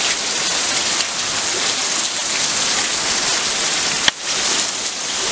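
Steady rain falling on leafy plants, an even hiss, with one sharp click about four seconds in.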